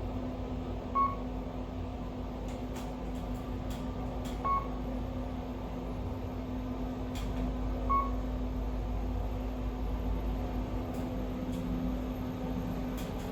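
Kone EcoDisc machine-room-less traction elevator car travelling up, a steady low hum and rumble inside the cab, with a short electronic beep three times about three and a half seconds apart as the car passes floors.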